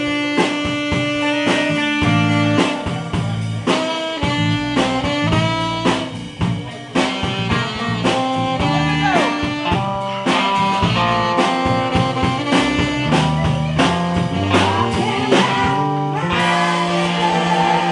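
Live band playing a blues-style number, led by electric guitar over a drum kit, with a few bent notes midway.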